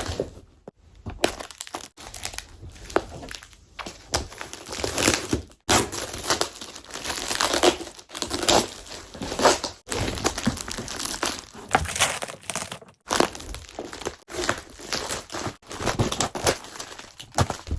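Packaging crinkling and rustling in irregular bursts as a parcel is unwrapped by hand, with a few abrupt breaks in the sound.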